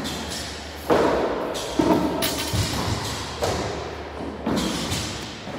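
Repeated heavy thuds from a workout, echoing in a large gym hall, about one a second, over background music.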